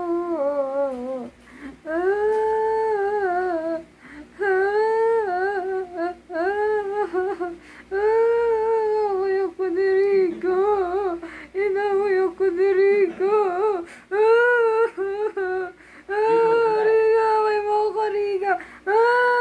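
Miniature pinscher whining and howling in long, wavering, sliding tones, one drawn-out call after another with short breaks between.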